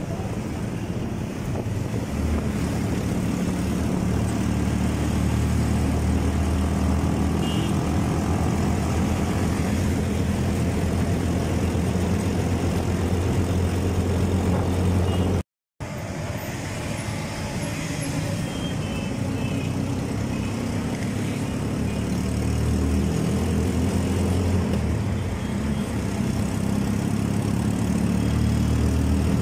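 Steady engine hum and road noise from a moving vehicle, with other traffic around it. The sound drops out completely for a split second about halfway through.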